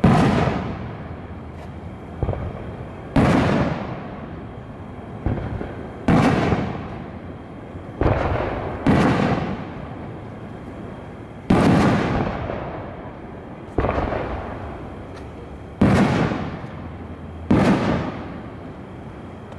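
Aerial firework shells bursting, about eleven sharp bangs spaced one to two and a half seconds apart, each followed by a rolling echo that dies away.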